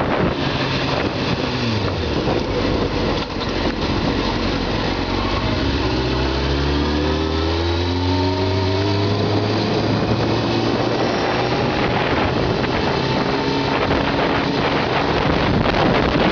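Honda CBR600F4i inline-four motorcycle engine running under way, with heavy wind rush on the microphone. Its pitch falls over the first two seconds, then climbs steadily from about five seconds in as the bike accelerates.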